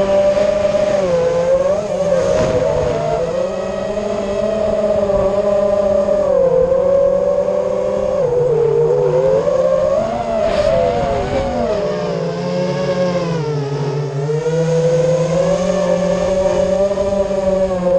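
Eachine Wizard X220 FPV quadcopter's four brushless motors and propellers whining in flight, the pitch rising and falling with the throttle and dipping twice as the throttle is eased off.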